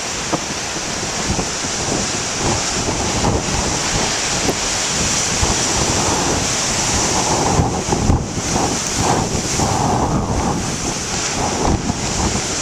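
Big ocean waves breaking and surf rushing, with wind buffeting the microphone; the surf swells louder through the middle stretch.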